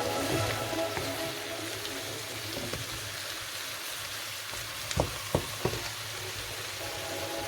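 Shrimp frying in margarine in a pan, giving a steady sizzle. Three sharp clicks come about five seconds in.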